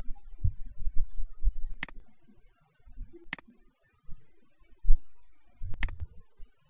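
Computer mouse button clicking a few times, with two clicks close together near the end and soft low bumps in between.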